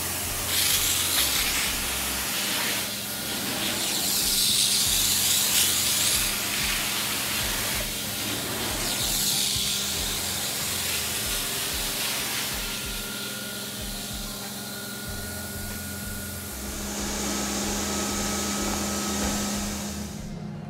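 Carpet-cleaning extraction wand hissing as it sprays and sucks water back out of the carpet, in several louder surges as it is pushed and pulled across, over a steady machine hum.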